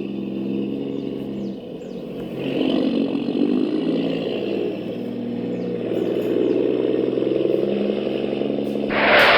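A truck engine sound running steadily, with its revs swelling and easing a few times. Near the end a loud hissing noise cuts in suddenly.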